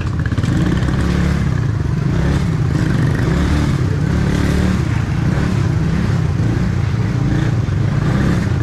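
Motorcycle engine running steadily at low speed, heard from the rider's own bike as it moves through a crowded lane behind other motorcycles.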